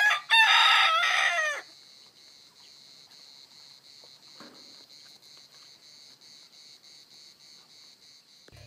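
A rooster crowing once: a loud call of about a second and a half with a falling tail. After it comes a faint, steady, pulsing chirp of insects.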